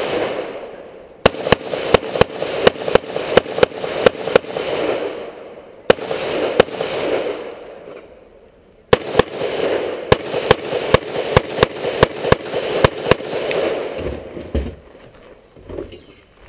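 Rapid strings of gunshots from a competitor's firearm on a 3-gun stage, about three to four shots a second, each ringing with echo. A lull of about three seconds in the middle holds a single shot, then a second fast string follows and stops a little before the end.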